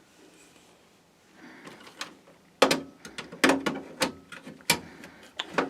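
Hands working inside a desktop computer case: a soft rustle, then from about two and a half seconds in a series of sharp clicks and knocks of plastic and metal parts being handled and fitted.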